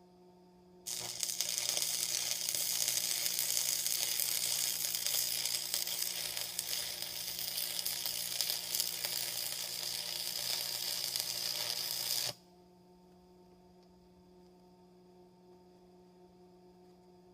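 Arc welding with a Lincoln AC-225 stick welder and 6011 rod. The arc strikes about a second in, runs steadily for about eleven seconds as one weld pass, and cuts off suddenly. A low steady hum sounds before and after it.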